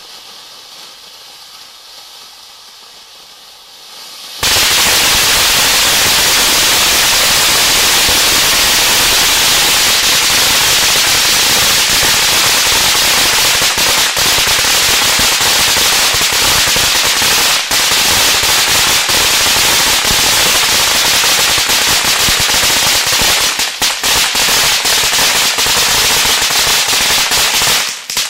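'Spartan Scream' ground fountain firework spraying sparks more quietly for about four seconds, then breaking into a loud, dense crackling that runs on evenly. The crackling falls away just before the end.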